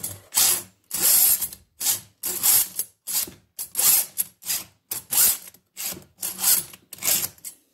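Round chainsaw file in a Stihl file holder, run through a Stihl FF1 filing guide to sharpen a cutter on a 3/8" Picco chain: a steady series of short rasping file strokes, about two a second.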